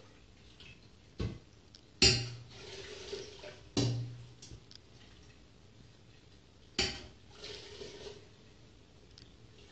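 A metal ladle knocks against a stainless steel stockpot four times as broth is ladled out. After the louder knocks comes a short splashing pour of broth into a metal strainer over a second pot.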